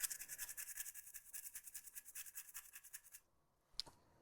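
A brush scrubbing a circuit board during cleaning: rapid, even back-and-forth strokes, about eight a second, that stop a little past three seconds in. A single faint click follows near the end.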